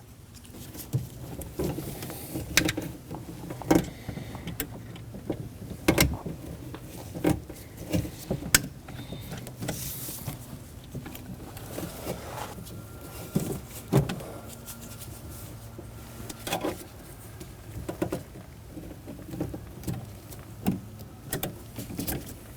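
Scattered plastic and metal clicks and knocks of a new door handle latch cable being worked into the front door latch by hand.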